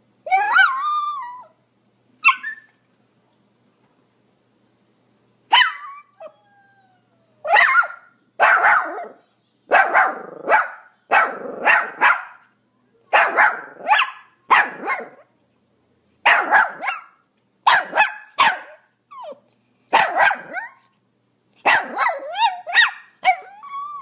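Pomeranian barking: a drawn-out whining yelp at the start, then, from about a third of the way in, a run of short high-pitched barks, often two or three in quick succession.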